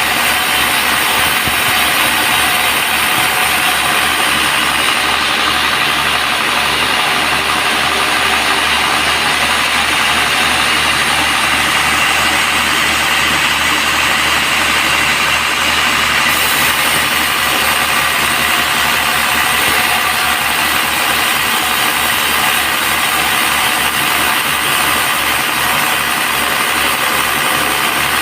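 Band sawmill running steadily, with an even, unbroken mechanical noise.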